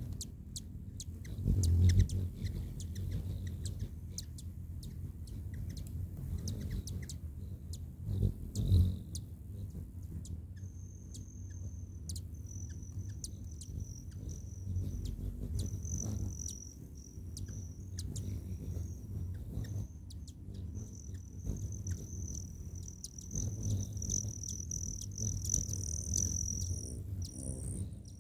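Hummingbirds at a feeder: a low wing hum that swells loudly twice as birds hover and fly in close, with many short high chips. A steady high-pitched trill, broken in places, runs through the second half.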